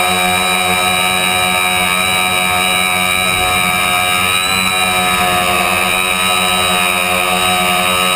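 Tricopter's electric motors and propellers whining steadily in flight, heard from the onboard camera, the pitch shifting slightly as the throttle changes.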